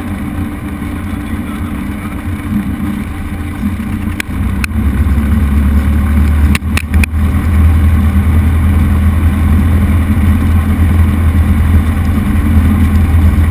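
Cessna 172 piston engine and propeller droning steadily, heard inside the cabin. It grows noticeably louder a little over four seconds in and holds there. A few sharp clicks come between about four and seven seconds in.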